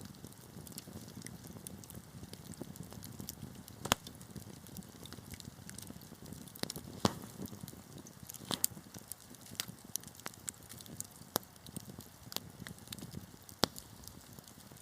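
Wood fire burning in a fireplace, a soft low rush of flame under a steady scatter of small crackles, with several louder sharp pops from the burning logs, the strongest about four seconds in, around seven to nine seconds, and near the end.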